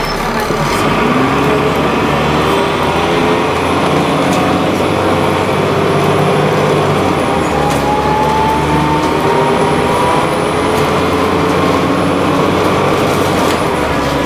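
Dennis Trident double-decker bus under way, heard from the upper deck: the diesel engine and drivetrain running steadily, with a whine that rises in pitch as the bus picks up speed through the middle. Road noise and a few sharp rattles from the body come through as well.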